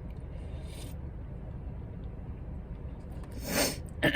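A steady low hum, with a faint short noise about half a second in and a brief, louder rush of noise about three and a half seconds in.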